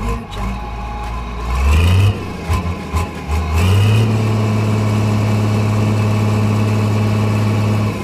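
Engine sound of a heavy vehicle: a short rev about two seconds in, then a steady low drone from about halfway through that stops near the end.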